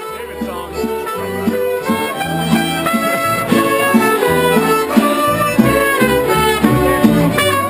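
Latin string-band music, mariachi style: strummed and plucked guitars and a violin over a deep plucked bass line, growing louder over the first couple of seconds.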